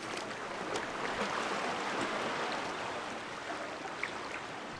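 Water trickling and lapping against a canoe as it is paddled, a steady wash with a few small clicks.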